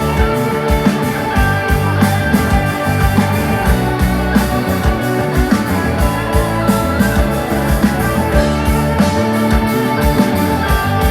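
Loud recorded music with a steady drum beat, heavy bass and guitar, played through a concert PA system of Das Audio and RCF HDL 20 line-array speakers during a sound check.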